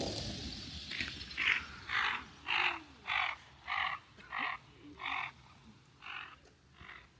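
An animal giving a series of about ten short, harsh calls, a little under two a second, fading toward the end, after a brief rush of noise at the start.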